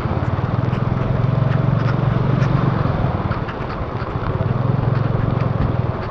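Motorbike engine running under throttle, its drone swelling twice, over the steady hiss of heavy rain with scattered ticks of raindrops.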